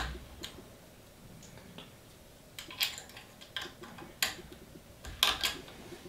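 Small metal clicks and clinks of a hex key turning the X-axis belt tensioner screws on an Ender 3 Pro 3D printer, as the screws are tightened to hold belt tension. The clicks come as a scattered run of sharp taps starting about two and a half seconds in.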